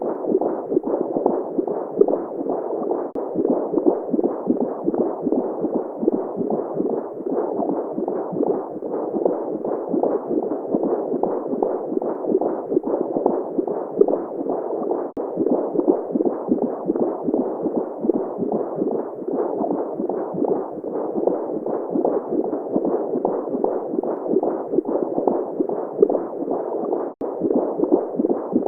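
Simulated womb sound for baby sleep: a steady, muffled whooshing rush, flickering constantly, that cuts out for an instant twice, about halfway and near the end.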